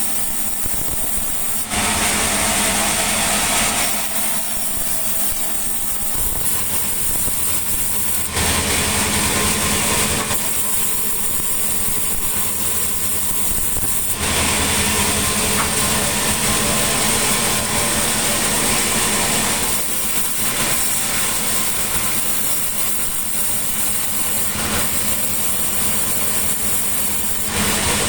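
Sawmill saw cutting mahogany, its machinery running with a steady drone while a loud, harsh cutting hiss comes and goes four times, each pass lasting a few seconds.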